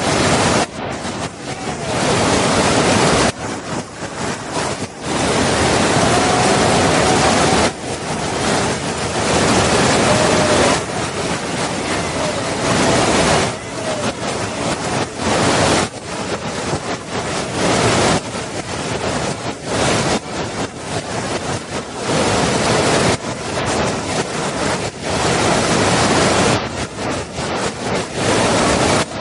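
Waterfall: a loud, steady rush of falling water, broken by brief sudden dips in level every few seconds.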